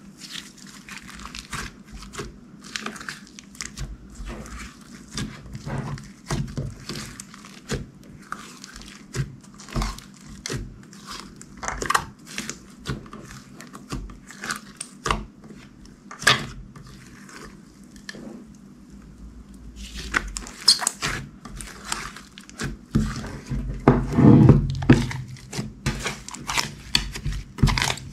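Glossy slime being kneaded and pressed by hand: an irregular stream of small sticky clicks and pops as air pockets burst, with a louder, lower-pitched squish near the end.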